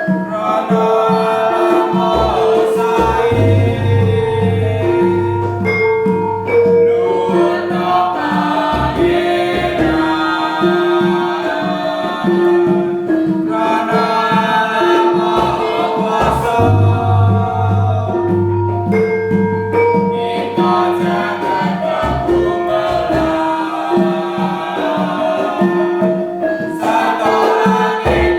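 Gamelan ensemble playing: metallophones strike a stepping melody of ringing notes, with low gong tones that hang on for several seconds twice, and voices singing along.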